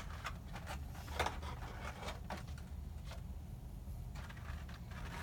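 A few faint, scattered clicks and taps from handling a cardboard gift box, over a steady low hum.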